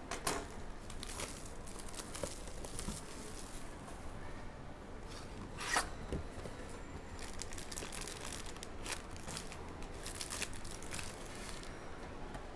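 Plastic wrapping of a Prizm Basketball hobby box and its card packs being torn and crinkled open: a run of rustling rips and crackles, with a sharper snap about six seconds in.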